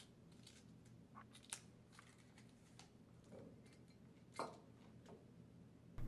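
Near silence, with a few faint taps and rustles from hands settling paper head gaskets onto the pump head; the clearest tap comes about four and a half seconds in.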